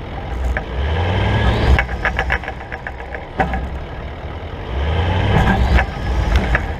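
Four-wheel-drive engine revving hard in two surges, the pitch rising each time, with stones knocking and clattering on a rocky track.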